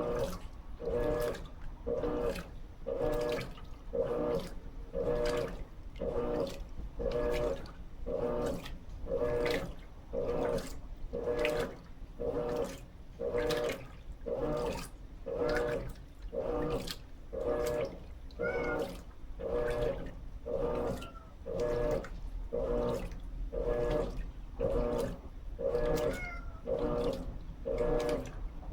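Electrolux LT13B top-load washing machine agitating its load in water: the agitator motor hums in short, regular strokes, about one and a half a second, in a steady back-and-forth rhythm.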